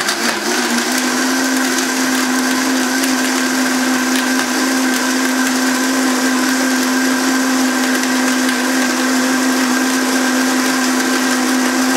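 High-powered countertop blender running on high, blending a thick dressing of almond butter, dates and ginger until smooth. Its motor pitch climbs about half a second in, then holds steady.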